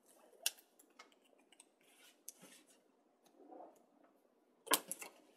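Paper crafting handling noise: the release liner peeled off an adhesive strip and the strip pressed onto chipboard, with soft rustles, scattered small clicks and a few sharp taps near the end.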